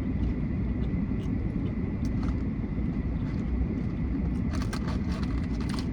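Steady low rumble of a car on the road, heard inside the cabin, with small clicks and crunches from eating, bunched near the end.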